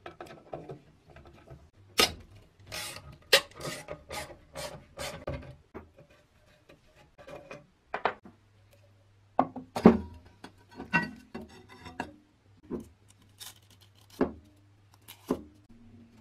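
Hand tools working on a rusty bench grinder's tool rest and wheel guard: metal clinks, scrapes and knocks as a wrench and screwdriver turn the bolts and the guard parts are handled. The strikes come irregularly, some ringing briefly.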